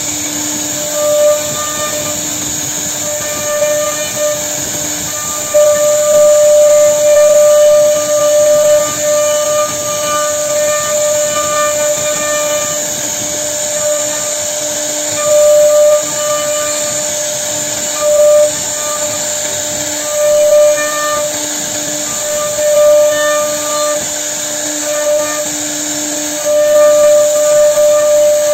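CNC router spindle running while its bit carves a wooden door panel: a steady high hiss with a humming cutting tone that swells and fades as the bit bites into the wood.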